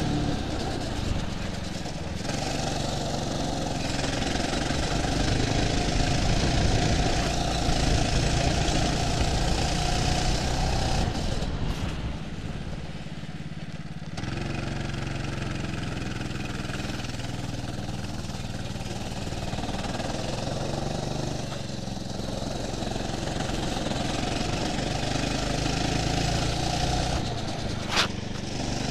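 Go-kart engine running, heard onboard, its pitch and loudness rising and falling as the kart accelerates and lifts off through corners. A single sharp click sounds near the end.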